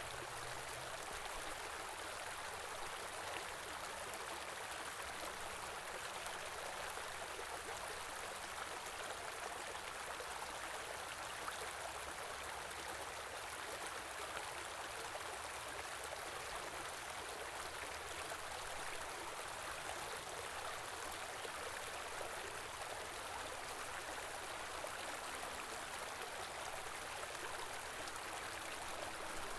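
A small stream flowing steadily, the water running and splashing with a constant hiss and fine trickling detail.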